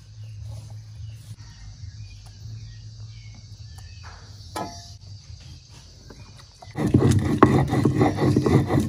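Stone roller (mano) grinding roasted tomato and onion on a stone grinding slab (metate, piedra de moler), a loud rough scraping made of quick repeated strokes that starts about seven seconds in. Before that, only light handling of the ground pumpkin seed over a steady low hum.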